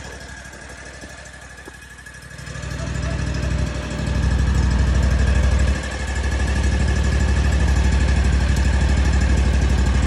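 Scag Patriot zero-turn mower's engine running: fairly quiet at first, it grows louder from about two seconds in and then runs loud and steady, with one brief dip.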